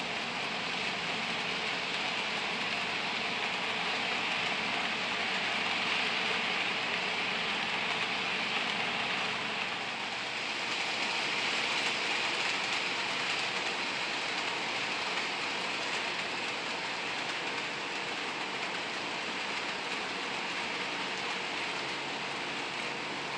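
HO scale model train (an Athearn Blue Box GP40 locomotive pulling freight cars) running on layout track: a steady whirring hiss of the locomotive's motor and the wheels rolling on the rails, swelling slightly a couple of times.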